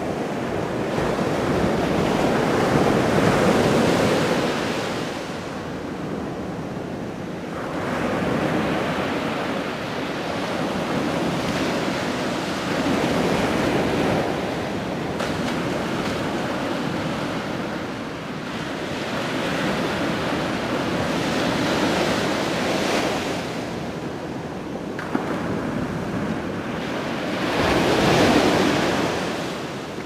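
Ocean surf breaking on a beach: a steady rush of noise that swells and fades every few seconds as waves come in.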